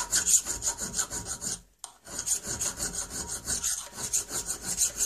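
Hand file rasping across a steel rear sight fitted on a flintlock pistol barrel, in quick back-and-forth strokes, with a brief pause a little under two seconds in. This is the light finish filing that dresses the sight once it is fixed in its groove.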